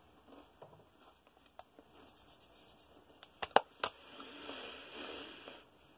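Faint close-up rustling and scratchy handling noises, with three sharp clicks about three and a half seconds in and a longer soft rustle after them.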